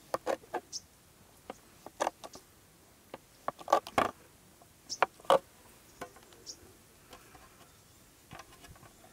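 Kitchen knife slicing a block of paneer into cubes, its blade knocking on a plastic cutting board: a dozen or so short, sharp taps at irregular intervals, most of them in the first six seconds.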